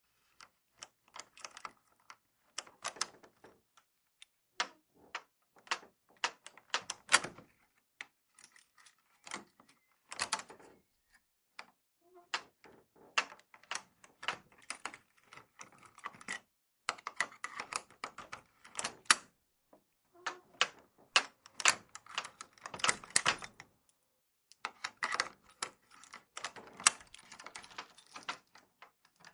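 A bunch of old shed keys jangling and clinking, in irregular bursts of rapid metallic clicks separated by short pauses.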